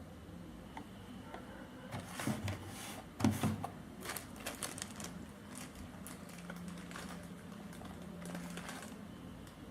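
Irregular sharp clicks and taps of handling, densest about two to five seconds in, followed by a faint steady low hum.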